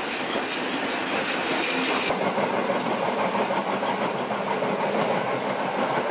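Passenger train running along the track, a steady noise of wheels on rails heard from inside the carriage.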